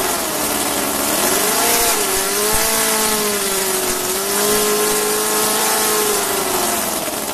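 Miniature multi-cylinder V-type model engine running fast with a buzzing, hissy note. Its pitch dips and then rises about a second and a half in as the throttle is worked, holds fairly steady with small wavers, and sags slightly near the end.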